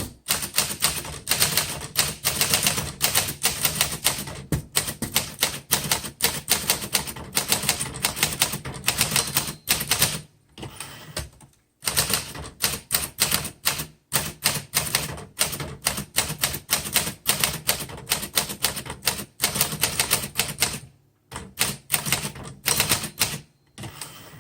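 1947 Smith Corona Sterling manual typewriter being typed on: a quick, steady clatter of keys and typebars striking, several strokes a second, with short pauses about ten and twenty-one seconds in.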